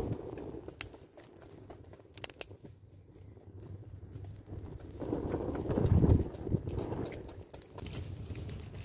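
Wood fire of thin dry sticks crackling, with scattered sharp pops and a low rushing swell that peaks about six seconds in.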